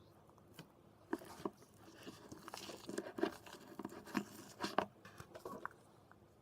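Cornstarch-and-dish-soap slime being worked by hand: an irregular run of faint crunchy, crinkly scraping and clicking from about a second in until near the end.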